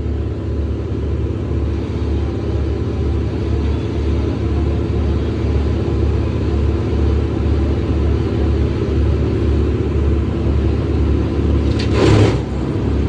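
A large engine running steadily with a low, pulsing rumble. Near the end comes a short, loud burst of rushing noise.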